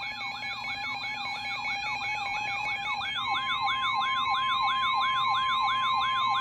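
Electronic emergency-alert siren tone: rapid yelping sweeps, about three a second, layered over steady tones, with another steady tone joining about three seconds in. It is the alarm that heralds a tornado warning.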